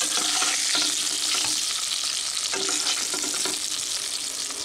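Pointed gourd pieces sizzling in hot mustard oil in a non-stick wok. A spatula scrapes and knocks against the pan as it scoops them out.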